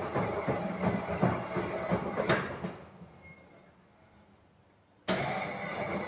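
Miele professional washing machine drum tumbling a load of laundry in the wash, with a steady rumble and irregular knocks and clatter. The sound fades to near silence about halfway, then comes back suddenly about five seconds in.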